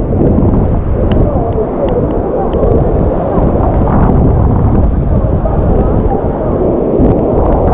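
Loud, steady rush of a large waterfall heard close up, a dense deep roar of falling water.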